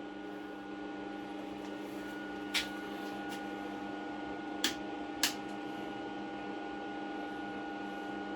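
A MIG welder humming steadily while switched on but not welding, a mix of steady tones from its transformer and cooling fan. Three short sharp clicks stand out over the hum, about two and a half, four and a half and five seconds in.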